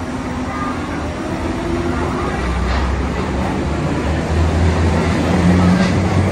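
Yellow Berlin U-Bahn train running past along an underground station platform: a steady rumble of wheels on rail with a low hum, growing louder over the last few seconds.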